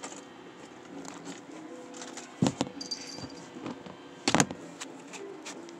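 Plastic fidget toys being handled, knocking and rattling together in scattered clicks, with two louder clattering bursts about two and a half and four and a half seconds in.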